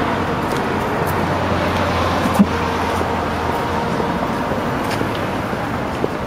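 Steady road traffic noise from cars passing on a city street, with a low drone that stops about halfway through and a single short knock near the middle.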